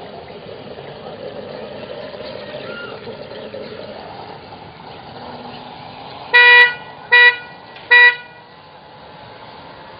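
A horn tooting three short blasts, each on one steady pitch, about a second apart in the second half.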